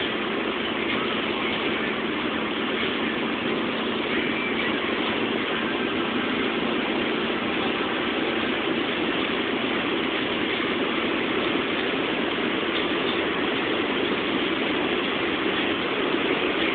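Steady wind, tyre and engine noise inside a Mercedes-Benz C-Class cabin cruising at very high Autobahn speed, up to about 240 km/h.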